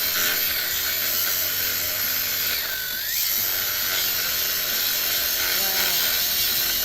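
A power tool working metal: a steady abrasive hiss that eases briefly about three seconds in.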